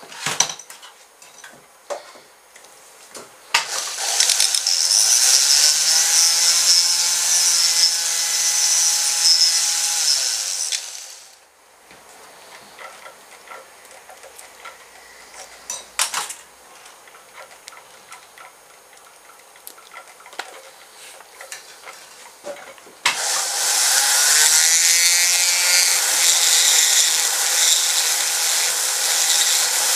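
Flexible-shaft rotary tool grinding and shaping the band holder of a roller speargun, running at a steady speed in two long spells, the first about seven seconds and the second starting about 23 seconds in. Between them come quieter handling clicks and knocks.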